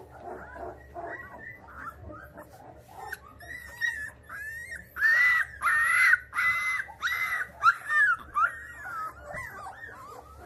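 Two-week-old Labrador retriever puppies whining and squealing in a string of high, wavering cries. The cries are loudest in the middle of the stretch, where about five long squeals come one after another.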